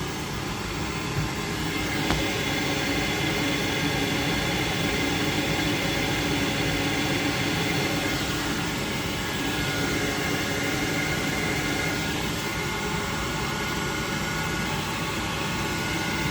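Worcester Bosch gas combi boiler running after a successful ignition: a steady rushing whoosh with faint whistling tones, growing slightly louder about two seconds in.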